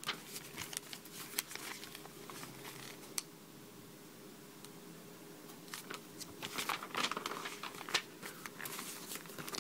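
Paper pages of a LEGO instruction booklet being handled and turned: soft rustling with light clicks, busiest in the first second and again from about six seconds in.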